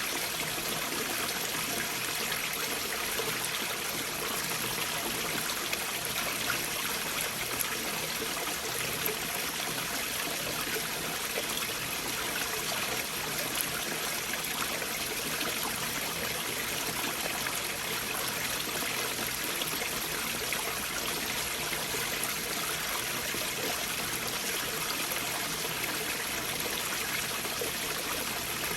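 Stream water flowing beneath large boulders, heard from gaps between the rocks: a steady, even rush of water with small splashes scattered through it.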